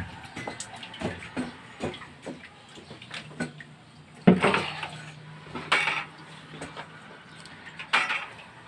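Irregular clicks and knocks, with a loud clattering knock about four seconds in and two more metallic clanks later.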